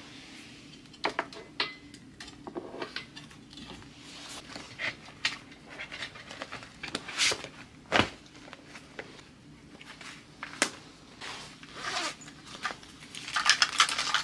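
Study things being handled and set down on a desk: soft rustling and scraping broken by clicks and knocks, with one sharp knock about eight seconds in. Near the end comes a quick run of rasping, like a zip being pulled.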